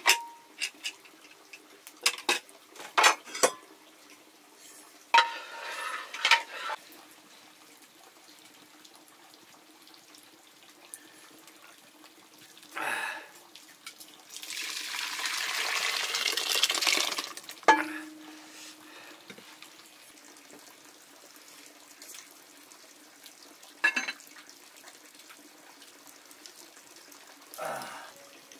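Metal pots and utensils knocking and clinking in scattered sharp strikes, with water poured for about three seconds about halfway through.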